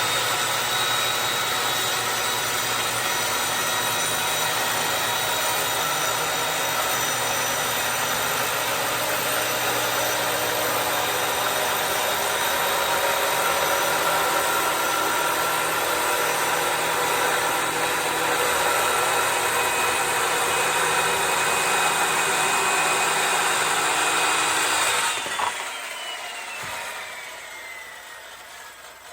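Electric power saw cutting wooden planks, its motor running at a steady whine for about 25 seconds. It is then switched off and the whine falls away as the blade spins down.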